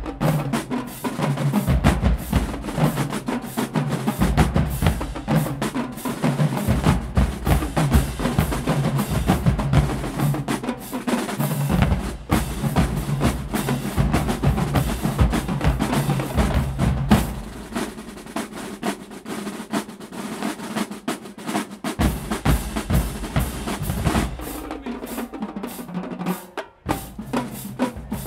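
Marching band drumline playing a cadence: snare drums, tenor drums, bass drums and crash cymbals together. The bass drums drop back for a few seconds past the middle, then return, and the playing turns choppier near the end.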